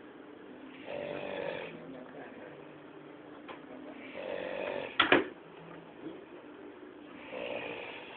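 A man snoring loudly, three long snores about three seconds apart. A sharp click about five seconds in is the loudest sound.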